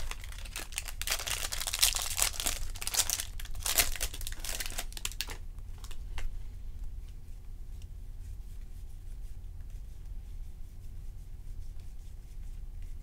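Plastic wrapper of a baseball card pack being torn open and crinkled for about five seconds, then only faint ticks of handling.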